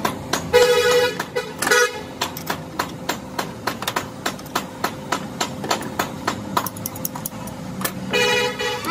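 A vehicle horn honks three times: a blast about half a second in, a short toot near two seconds, and a longer blast near the end. Under it runs a steady series of sharp taps or clicks, about three a second.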